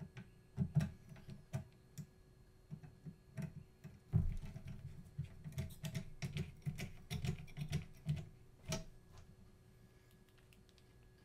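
Irregular small clicks and taps of hands and tools handling the parts of a Matterport Pro 3 camera being taken apart. They come in a quick flurry through the middle and die away near the end.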